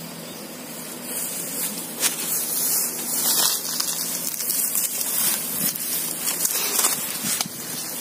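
Footsteps brushing through dry grass and dead corn stalks: a continuous rustle with many small snaps.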